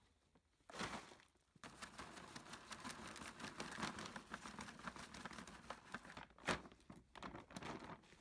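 Soil being emptied from a plastic bucket into a fertiliser bag: a short pour about a second in, then a longer rustling, crackling pour of soil into the bag, with a single sharp knock about six and a half seconds in.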